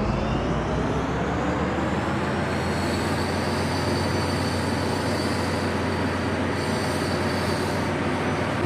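Steady machinery drone with a constant low hum and a faint high whine, unchanging throughout.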